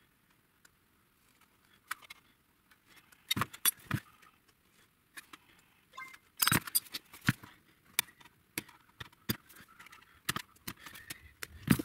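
Hand tin snips cutting thin sheet steel: a string of sharp metallic clicks and snips at irregular intervals as the blades close and the sheet shifts, the loudest about six and a half seconds in.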